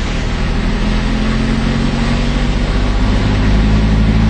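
Car engine running with steady road and wind noise, heard from inside the moving car; the low engine hum grows louder toward the end.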